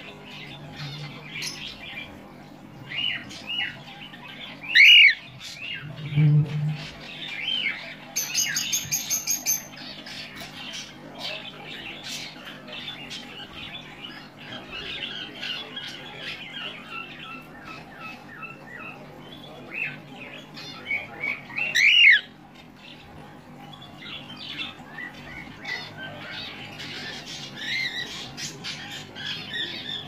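Cockatiel chirping and squawking, with two loud calls about five seconds in and again just past twenty seconds, among many quieter chirps throughout. A quick run of high piping notes comes about eight seconds in.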